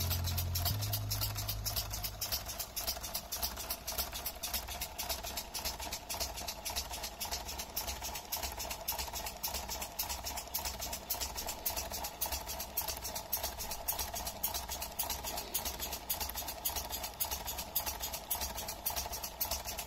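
Lego pneumatic steam locomotive model running: its air cylinders and valves puff in a fast, even rhythm, over a steady hum.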